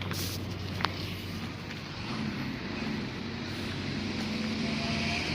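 Steady low rumble of a motor vehicle running, with a single sharp click about a second in.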